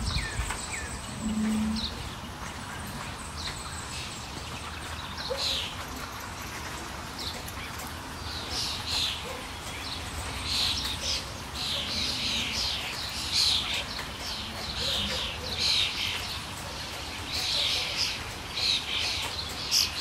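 Parrots calling over steady rain: short, shrill, downward-sweeping calls, sparse at first and then coming thick and loud in the second half. A short low note sounds about a second and a half in.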